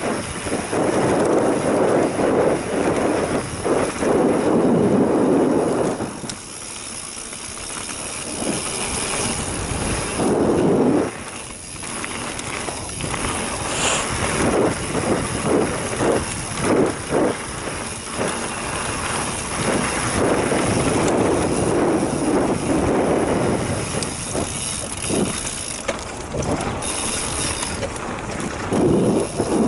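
Mountain bike riding fast down a dirt singletrack: wind rushes over the microphone in swells, with tyre noise on dirt and the bike clattering and knocking over bumps, the knocks thickest in the middle and near the end.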